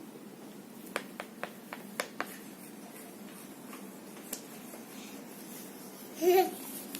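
A few light, sharp plastic clicks and taps, about six in quick succession and then one more, as a small plastic cup or tray of a toy drink-mixing kit is stirred. Near the end a child gives a short, loud, wavering hum.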